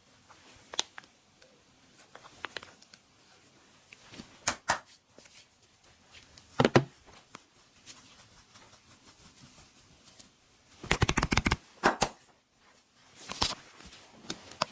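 Sharp cracks and smacks from hands working on a body during a massage: single snaps every second or two, the loudest about seven seconds in, and a quick rapid run of them around eleven seconds in.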